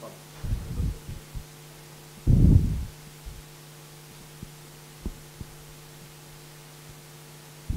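Steady electrical hum on the microphone and sound-system line, with a few dull low thumps, the loudest about two and a half seconds in.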